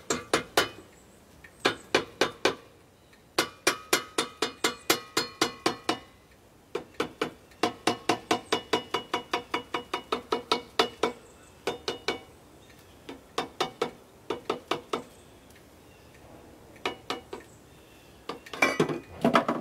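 Runs of sharp metallic clicks or taps from a hand tool working on the Kohler 14RESA generator's alternator housing, about four or five a second, each ringing briefly. The runs come in several bursts with short pauses between them.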